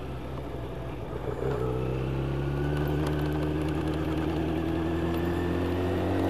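Yamaha YZF 1000cc inline-four motorcycle engine heard from the bike itself, accelerating. About a second and a half in, the engine note steps up as the throttle opens, then climbs slowly and steadily in pitch, over wind and road noise.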